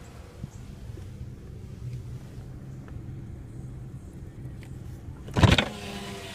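Steady low hum of a running vehicle engine, with a loud, brief rush of noise about five and a half seconds in.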